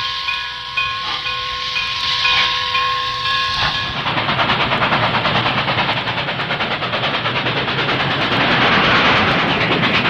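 Steam locomotive working a freight train. For the first few seconds there is steady hissing under a held tone and a quick repeating high note. About four seconds in this changes to the fast, even beat of the exhaust and the rumble of the train passing close by.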